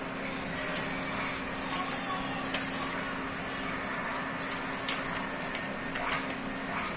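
Paper pages of a homemade notebook being turned and pressed flat, giving a few light rustles and taps, the sharpest about five seconds in, over a steady background hum.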